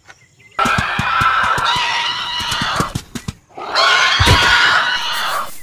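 Dinosaur roar sound effect: two long, rough roars, with heavy thudding footsteps underneath.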